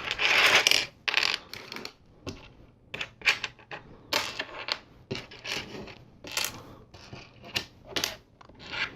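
Small plastic LEGO pieces clicking and clattering as they are handled, picked out and pressed together, in irregular sharp clicks with a longer rattle during the first second.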